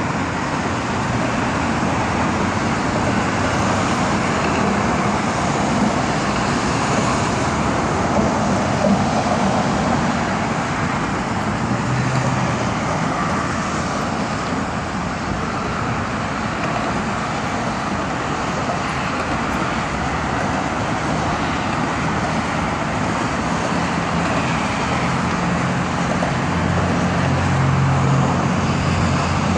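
Steady highway traffic noise from cars passing on an elevated roadway, with a lower engine drone from a heavier vehicle rising near the end.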